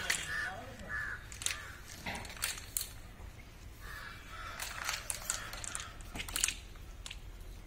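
Crows cawing repeatedly in short calls, with scattered sharp clicks and knocks.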